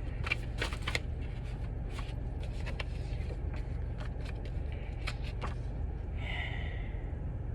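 Tarot cards being handled and laid out, with scattered light clicks and taps over a steady low hum.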